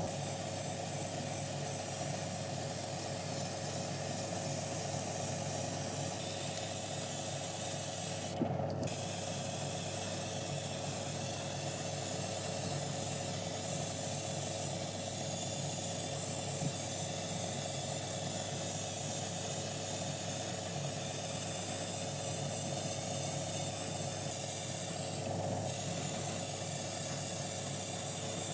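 Airbrush spraying paint onto small diecast model parts: a steady hiss of air over a low, steady hum. The hiss breaks off briefly about eight seconds in.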